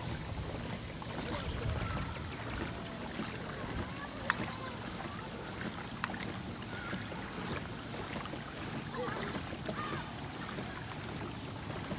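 A boat underway on a lake: a steady low rumble with water and wind noise, and a sharp click about four seconds in.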